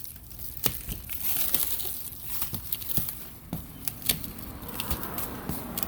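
Plastic stretch wrap crinkling and crackling as it is pulled at by hand, with many sharp crackles.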